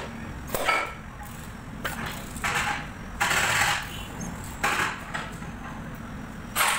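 Irregular scraping and clattering of workshop handling noise, about six short bursts with the longest a little past the middle, around a Mercedes engine slung from a shop hoist. A steady low shop hum runs underneath.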